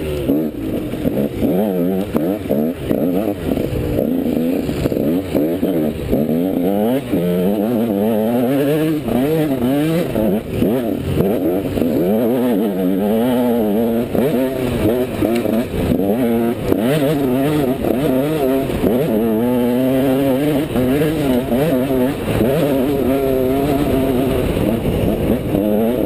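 Dirt bike engine heard from the rider's helmet, revving up and down continuously as the throttle is worked and gears change while riding off-road.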